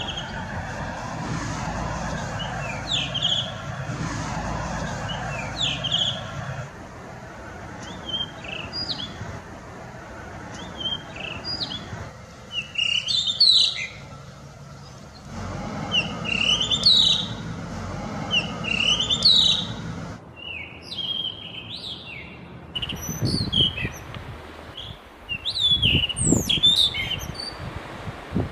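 Male blue rock thrush singing: short whistled, warbling phrases, one every second or two.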